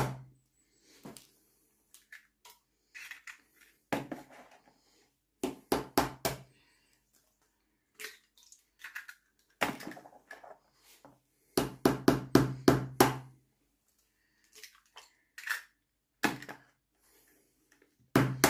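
Eggs being cracked into a Thermomix's stainless-steel mixing bowl: several groups of quick sharp knocks and cracks as shells are tapped and broken, with short pauses between eggs.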